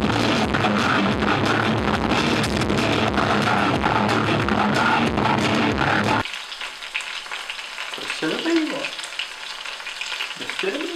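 Loud live rock music from a festival stage, cutting off abruptly about six seconds in. After it, food sizzling in a frying pan, with a couple of short voice sounds.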